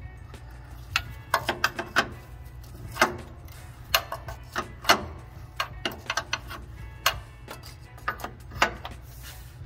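Sharp metal clicks and taps of a 7/8 wrench working the line fittings on a truck's diesel particulate filter. They come singly and in quick clusters every second or so, over a steady low hum.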